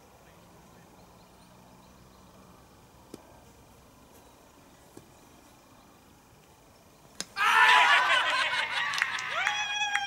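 A sharp crack of a cricket bat striking the ball about seven seconds in, followed at once by loud shouts and calls from the fielders.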